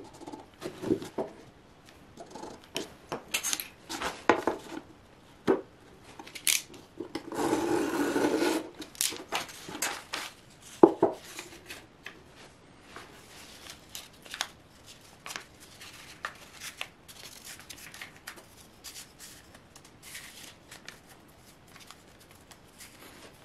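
Newspaper rustling and crinkling as a strip of it is handled and rolled around a wooden paper-pot maker, with a longer stretch of paper noise about eight seconds in and a sharp knock of wood on the bench a little before eleven seconds.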